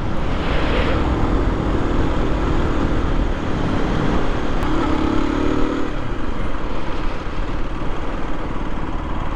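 Aprilia RS 125's single-cylinder four-stroke engine running under way, over steady wind and road noise. Its note falls away about six seconds in as the bike slows down.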